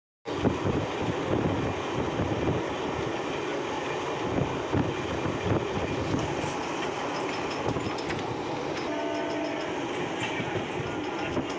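MEMU electric train running at speed, a steady rumble with wheels clacking over rail joints. Its horn sounds briefly about nine seconds in and again near the end.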